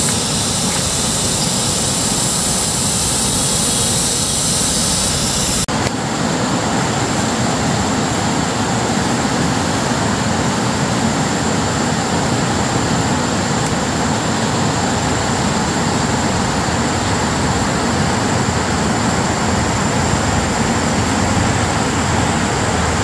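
Steady rushing of a fast mountain river, with an abrupt change in its tone about six seconds in.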